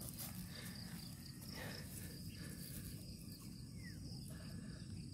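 Faint field ambience: insects chirring at a steady high pitch over a low rumble, with a few soft rustles of damp soil being worked by hand.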